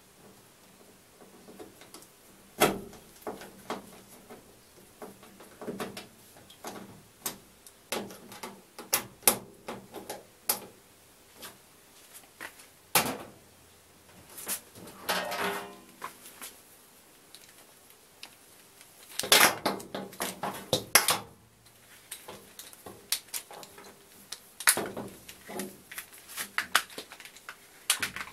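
Irregular clicks, knocks and short scrapes of tools and fittings being handled against the metal back panel of a washing machine, with busier clusters of clatter about halfway through and again near two-thirds of the way.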